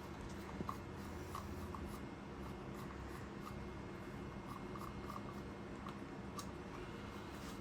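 Light scratching and scattered small clicks of small indicator parts being handled and worked by hand, over a faint steady hum; one sharper click about six seconds in.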